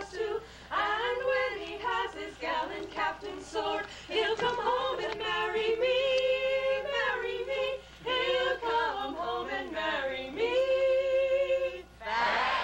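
A women's quartet singing a folk song a cappella in harmony, with long held notes, ending on a sustained chord. Just before the end the singing stops and a sudden burst of audience noise breaks in.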